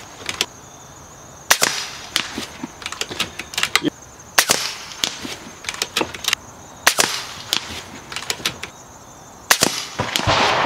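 Kalibrgun Cricket .25 PCP air rifle firing 36-grain slugs: several sharp cracks about two and a half seconds apart, with smaller clicks between them as the rifle is cycled for the next shot. A burst of rustling comes near the end.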